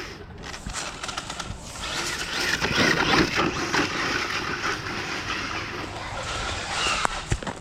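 Radio-controlled buggy running, its motor whining up and down in pitch over a rough, gritty tyre and drivetrain noise.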